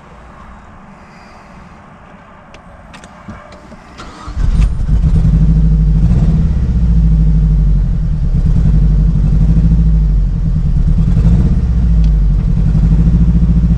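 Mazdaspeed 3's 2.3-litre turbocharged four-cylinder fires up about four seconds in, then runs loud with its speed wavering. This is the first start after a VVT timing and turbo repair, and the engine is running rough on a variable valve timing fault that reads as stuck closed.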